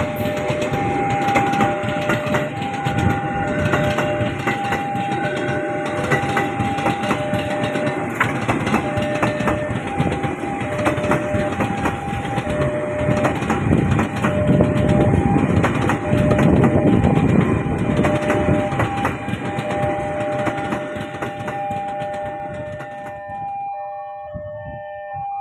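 A train running across a railway bridge, its rumble loudest around the middle and dying away near the end. Over it, a level-crossing warning alarm sounds two alternating electronic tones, which carry on after the train has passed.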